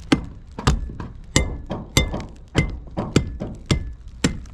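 Metal hand tool (hammer or pry bar) striking a metal roof edge in a steady run of about eight blows, one every half second or so, some with a brief metallic ring: old tar and silicone patching being knocked off the rusted seam. A low rumble sits underneath.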